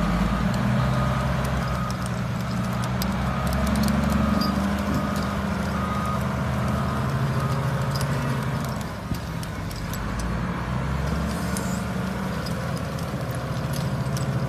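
Heavy wheel loader's diesel engine running under load while it carries a marble block, its pitch rising and falling. A backup alarm beeps repeatedly through the first half.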